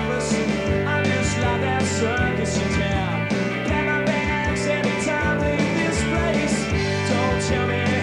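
Live rock band playing with electric guitars, bass and drums, cymbals struck in a regular beat, and a man singing into the microphone.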